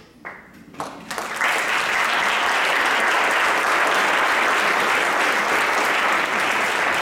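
Audience applauding: a few scattered first claps, then full applause that builds within about a second and a half and holds steady.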